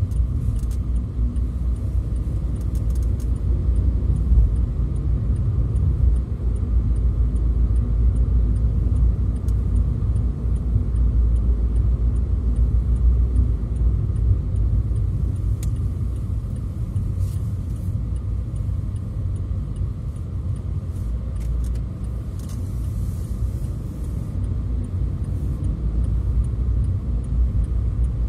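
Car in motion on an expressway: steady low road and engine rumble.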